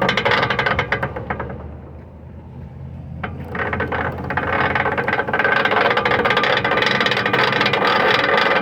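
Rear differential of a 2007 Chevy Avalanche rattling and clicking rapidly over a steady hum as it turns, the noise of a failing rear end. The noise eases off about two seconds in, then builds back up from about three seconds in.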